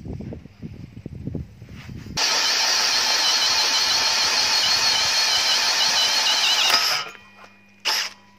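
Cordless drill driving a hole saw through steel plate to enlarge an existing hole: a loud, steady, high-pitched squeal of the saw teeth cutting. It starts about two seconds in after a few low knocks and stops abruptly about five seconds later.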